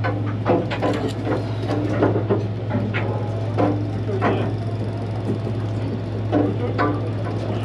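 Steady low hum of a fishing boat's machinery, with irregular clicks, knocks and clatter on top.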